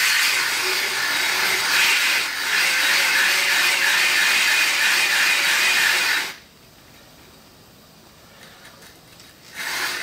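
Handheld corded drill turning a diamond-edged hole saw into a firebrick under water: a steady abrasive grinding, with a brief dip about two seconds in. The grinding stops about six seconds in and starts again just before the end.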